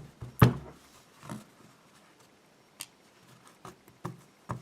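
Scattered sharp clicks and light taps of small metal parts of a disassembled dimple lock being handled and set down: pins and the cylinder's plug. The loudest click comes about half a second in, followed by a few fainter taps.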